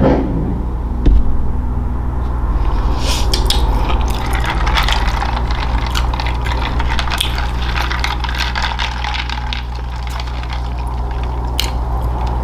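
Close-miked wet eating sounds: a dense run of small sticky clicks and squishes that builds up a few seconds in and carries on, over a steady low hum.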